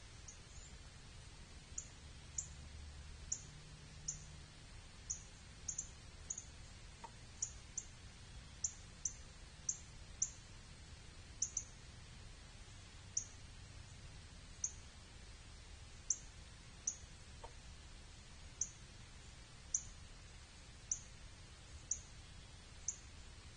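A bird's short, sharp, high chip notes, repeated irregularly at roughly one a second, over a faint low background rumble.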